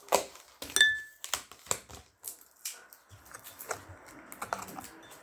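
Adhesive tape being pulled and peeled off a small plastic container: a run of sharp crackles and clicks with a brief squeak in the first two seconds, then softer rustling and handling.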